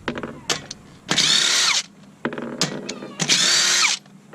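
Cordless power tool running in two short bursts of under a second each, with a whine that drops in pitch at the end of each burst and short clicks and knocks between them.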